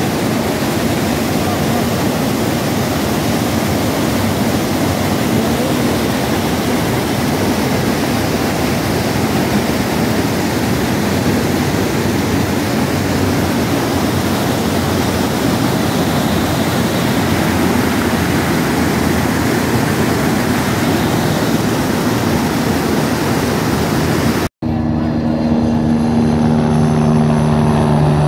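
Whitewater of a boulder-strewn mountain river rushing steadily over rapids. After a cut about 25 seconds in, a helicopter flies past, its rotor and engine giving a steady low hum with several even tones.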